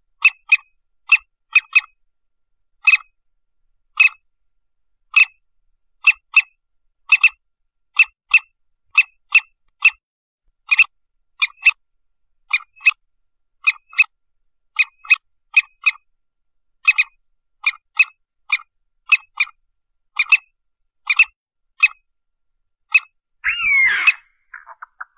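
Partridge calls: short, sharp chirping notes repeated about twice a second, often in quick pairs. Near the end comes one louder, longer call that slides in pitch.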